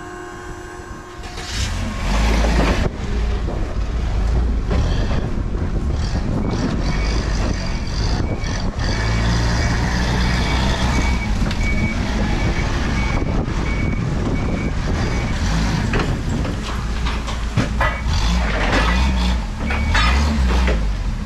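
Propane-powered Toyota forklift running and driving with a load, its engine a low, steady rumble. A high warning beeper sounds repeatedly for several seconds in the middle.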